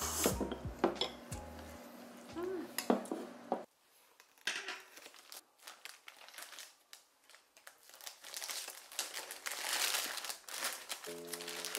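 Background music for the first few seconds, then it cuts out and a clear plastic bread bag is handled, crinkling irregularly and more densely toward the end. Music comes back in near the end.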